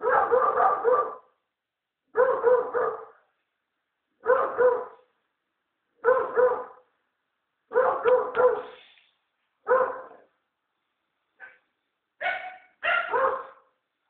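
American Staffordshire Terrier barking on guard: bouts of two to four quick barks coming about every one and a half to two seconds, with a few shorter, sharper barks near the end.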